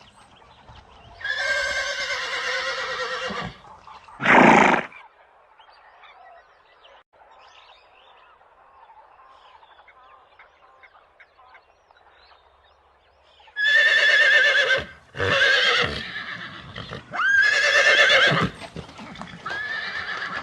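Horses whinnying. A long, quavering whinny is followed by a short loud call. After a quiet stretch of about nine seconds, four whinnies come close together near the end.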